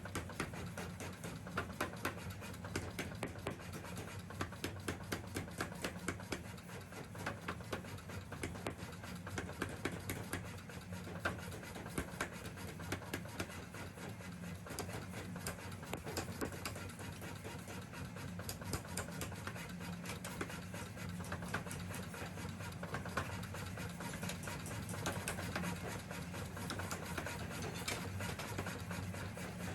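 Metalworking noise: a steady machine hum under a stream of quick, irregular knocks and scraping, with a run of regular strikes at about two to three a second in the first few seconds.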